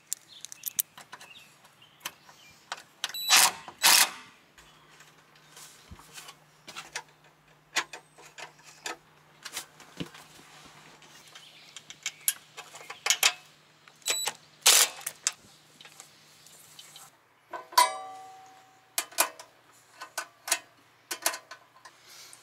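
Hand tools and metal hardware clinking and knocking while a 4-gauge ground wire is fastened to the RV frame: scattered sharp metal clicks and knocks, with one ringing metallic clank about three quarters of the way through. A faint steady hum runs underneath and stops shortly before that clank.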